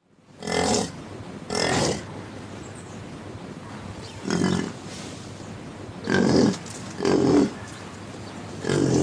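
An animal calling in six short, separate calls of about half a second each, irregularly spaced, over a steady hiss.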